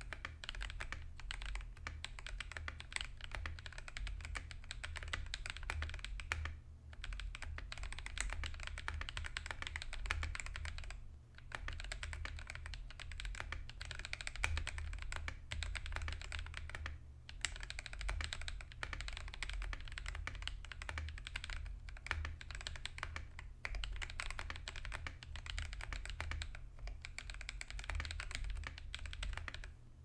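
Fast, continuous typing on an Akko ACR64 mechanical keyboard with Akko Ocean Blue switches lubed with Krytox 205g0, an FR4 plate, stock foam and Fog OEM-profile keycaps, broken by a few short pauses.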